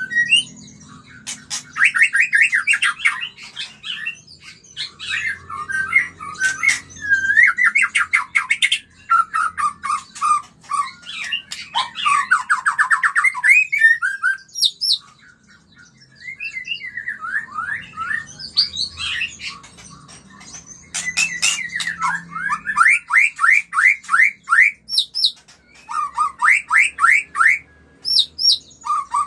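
White-rumped shama (murai batu) singing its mating-season song: fast runs of repeated whistled notes, rising and falling glides and sharp clicking notes, in varied phrases with a brief pause about halfway through.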